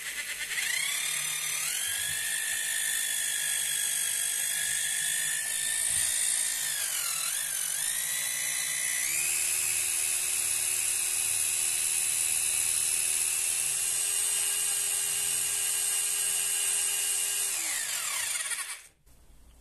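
Katana 950 W rotary hammer in drill-only mode, without hammer action, drilling a masonry bit into a lump of old hardened cement. Its motor gives a steady high whine that sags in pitch about seven seconds in, picks up again a couple of seconds later, and winds down near the end.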